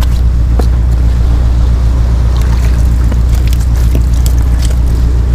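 Wind on the microphone, a steady low rumble, with faint scattered clicks over it.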